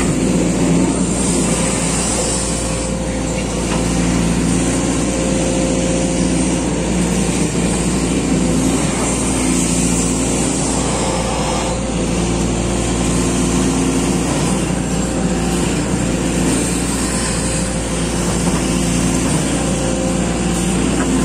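SANY SY215C hydraulic excavator's diesel engine running steadily under load as the boom and bucket dig, heard from inside the cab. The engine note swells and eases every few seconds as the hydraulics take up and release load.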